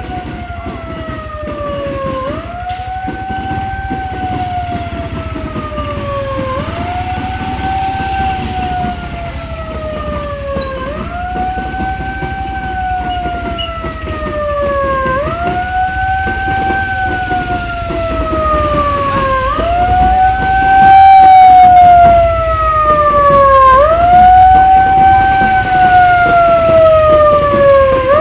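A siren wailing in slow cycles: each tone jumps up quickly, then slides slowly down, repeating about every four seconds. It gets louder about two-thirds of the way through, over a low steady noise.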